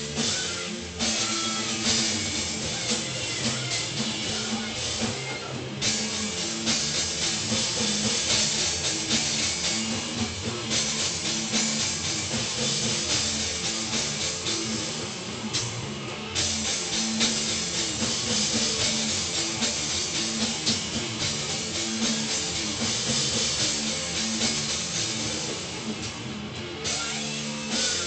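Punk noise band playing in a practice recording: loud, distorted bass over a drum kit, continuous and driving.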